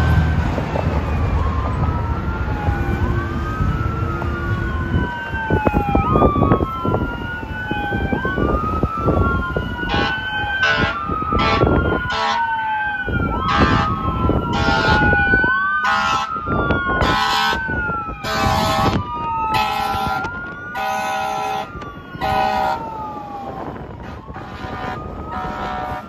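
Fire engine siren wailing, rising and falling every couple of seconds. From about ten seconds in, a series of short, loud air horn blasts cuts through it, with traffic rumble underneath.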